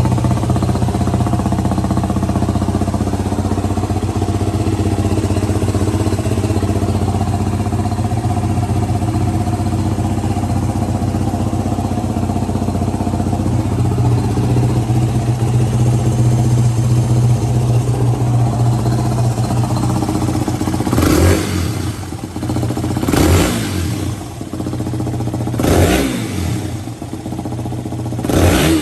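2007 Yamaha WR250X's single-cylinder engine, breathing through an aftermarket Delta Barrel 4 silencer, idling steadily. In the last several seconds it is blipped four times, each rev rising quickly and falling back to idle.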